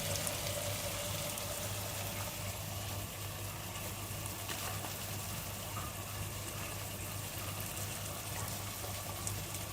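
Chicken karahi sizzling steadily in its oil in the pan, cooked down to the stage where the oil has separated from the masala. A steady low hum runs underneath.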